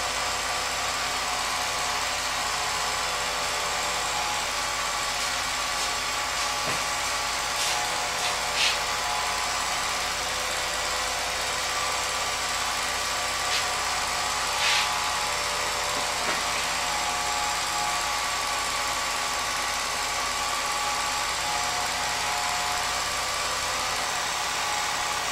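Home-movie film projector running with a steady motor whir, a few brief clicks standing out about 9 and 15 seconds in.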